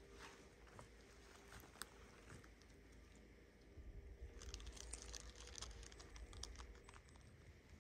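Faint footsteps crunching and crackling over twigs and dry litter on a mossy forest floor, growing busier about four seconds in together with a low rumble.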